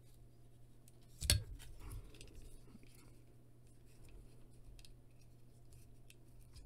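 Plastic joints and parts of a Transformers action figure clicking as hands work it through its transformation: one sharp click a little over a second in, then faint scattered clicks.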